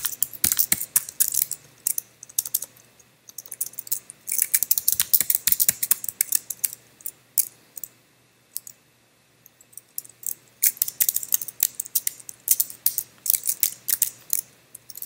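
Computer keyboard typing in short bursts of quick keystrokes, with brief pauses between and a longer pause of about two seconds about eight seconds in.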